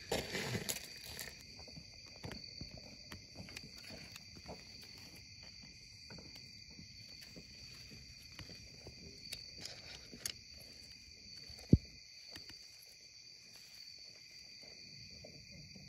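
Night insects, crickets, trilling steadily at two high pitches, with faint clicks and one sharp click near the end.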